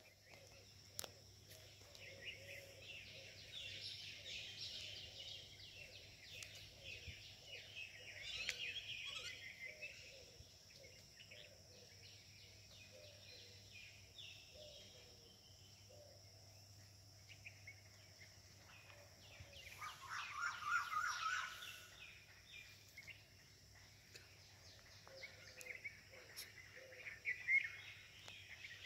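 Many birds chirping and chattering in quick short calls, with a louder burst of lower calls about twenty seconds in.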